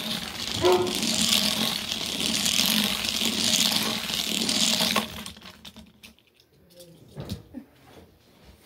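A small plastic toy car pushed fast by hand around a plastic track: its wheels make a steady rolling noise with a low hum that stops suddenly about five seconds in. A few faint knocks follow.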